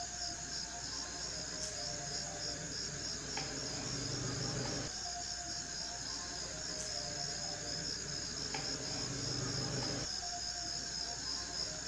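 A cricket trilling steadily in fast, even pulses, over background music with a light tick about every second and a half and a low repeating phrase.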